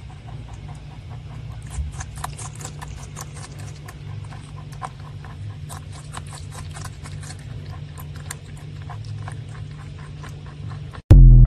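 Rabbit crunching cucumber slices: a rapid run of crisp bites and chews over a low steady hum. Near the end the loud TikTok outro chime cuts in.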